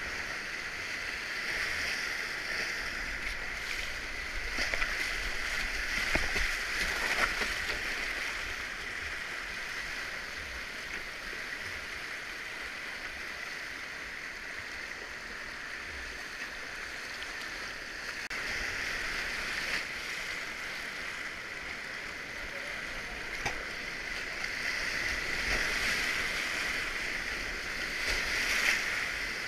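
Whitewater rapids rushing around a kayak, with occasional splashes and sharp knocks. The rush swells louder a few seconds in and again near the end.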